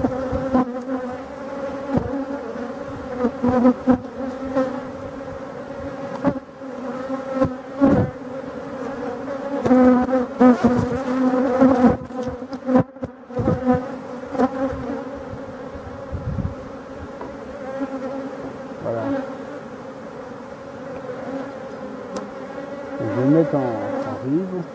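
Honeybees buzzing steadily over an open, crowded hive, broken by sharp clicks and knocks as the wooden frames are worked with a metal frame grip. Near the end a single bee passes close, its buzz rising and falling in pitch.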